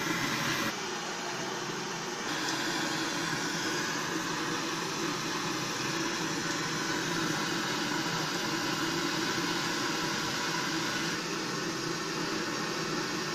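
Cauliflower pakoda pieces deep-frying in a kadai of hot oil, a steady sizzling hiss. It drops back briefly about a second in and fills out again a second or so later.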